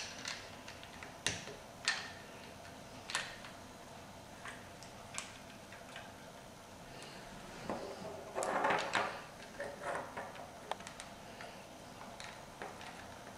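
LEGO bricks clicking and clacking as they are pressed together, pulled apart and set down on a wooden table by hand: scattered sharp clicks, then a longer clatter about eight seconds in.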